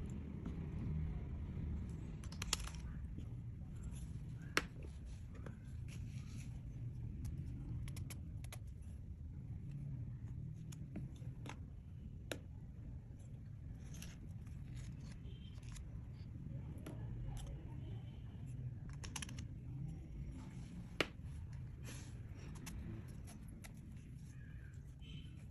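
Clear slime being mixed and stretched by hand: scattered sharp sticky clicks and pops over a low, steady rumble.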